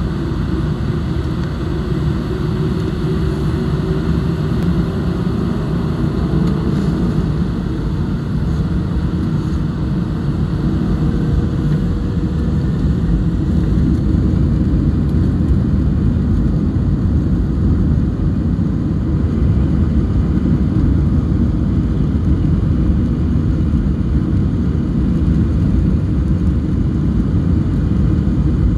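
Airbus A320 jet engines at takeoff power, heard from inside the cabin: a loud, steady rumble with a faint whistle that climbs slowly in pitch over the first half as the engines spool up. The sound grows a little louder partway through as the takeoff roll builds speed.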